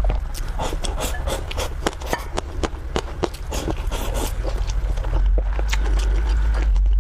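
Close-miked eating sounds: a string of quick wet clicks and crunches of chewing and mouth noise. A low rumble grows louder about five seconds in.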